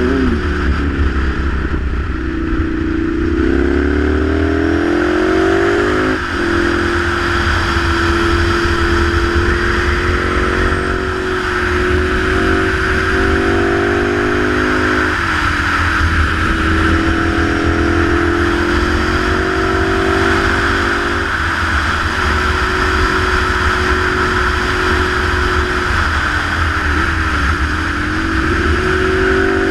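Ducati Monster 696's air-cooled V-twin engine running under way. Its pitch climbs as the bike accelerates and drops sharply at each gear change, about three times, then dips and picks up again near the end. A steady rush of wind noise runs underneath.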